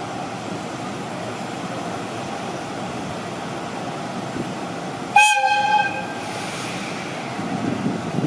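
Electric locomotive whistle sounding once about five seconds in: a short, sharp single-pitched blast lasting under a second, over steady background noise.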